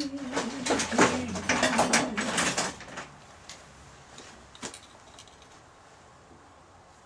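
Rapid scraping and clicking of a hand tool against a spalted oak blank on the lathe as a tenon is marked out, with a man humming over it; after about three seconds it stops, leaving only a few light clicks.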